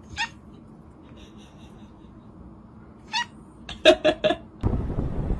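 Domestic cat meowing: one short meow at the start, another about three seconds in, then a quick run of four short, loud meows. Near the end a steady rushing noise takes over.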